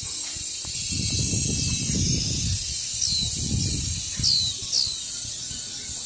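Outdoor garden ambience: a steady hiss with low wind rumble buffeting the microphone in two longer surges. Over it, a small bird gives short, high, falling chirps, often in pairs.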